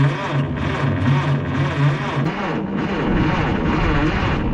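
The starter motor cranks the 1957 Case 310 Terratrac's engine in a slow, even rhythm of about two pulses a second, on starting fluid, and the engine does not fire.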